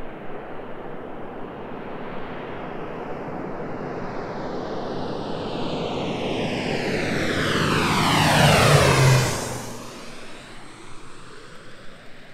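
Agricultural seeding airplane flying in low and passing overhead. Its engine and propeller grow steadily louder, peak about nine seconds in with a falling pitch sweep as it goes over, then fade quickly as it flies away.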